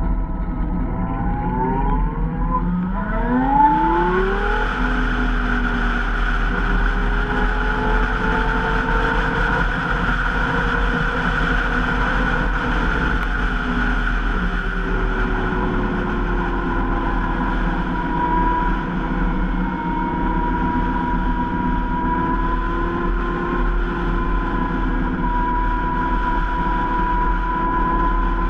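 Zero SR electric motorcycle's motor whining, rising quickly in pitch as it accelerates about three seconds in, then holding a steady whine that drifts slightly with speed. Underneath is a steady rush of road and wind noise.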